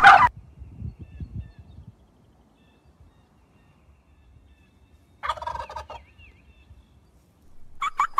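Turkey tom gobbling: a loud, short call right at the start, a rapid rattling gobble about five seconds in, and another gobble starting just before the end.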